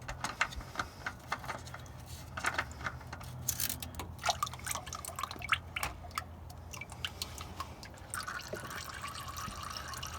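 Engine oil dripping irregularly from the oil filter mount into a drain pan, turning into a steadier trickle near the end.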